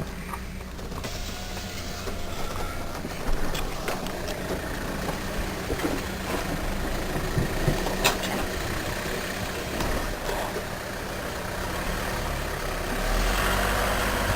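Vauxhall Frontera diesel 4x4 engine running at low speed while driving over rough off-road ground, heard from inside the cab. A few sharp knocks and rattles come through as it lurches over bumps, and it gets louder near the end.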